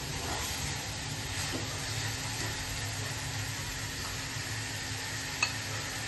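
Cabbage and prawn bhaji sizzling steadily in a kadhai over a gas flame, with one light click about five and a half seconds in.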